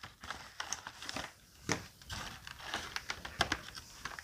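Cardboard box and paper packing rustling and crinkling as a boxed blood pressure monitor is unpacked, with a few sharp clicks and knocks of handling.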